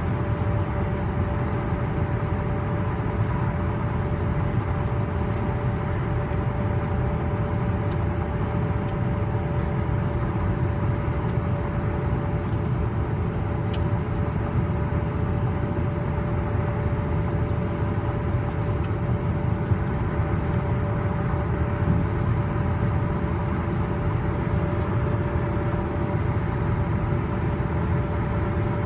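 Steady road noise of a vehicle travelling along Interstate 81: tyres on the highway pavement, with a constant droning tone in the hum.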